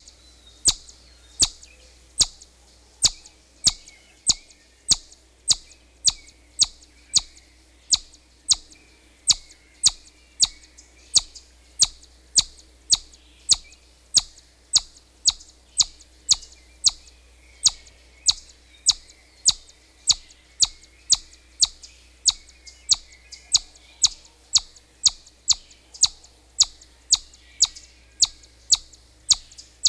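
Squirrel calling: a long, steady series of short, sharp chips, about two a second, some coming in quick pairs.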